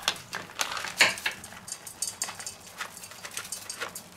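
A plastic bag of chopped roasted hazelnuts crinkling as it is handled, with irregular clicks and taps and a sharper knock about a second in, while the chopped hazelnuts are shaken out into a stainless steel bowl.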